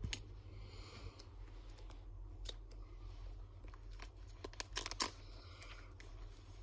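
Plastic card-binder sleeves rustling and clicking as pages of a Pokémon card binder are turned by hand, with a cluster of sharper clicks about five seconds in.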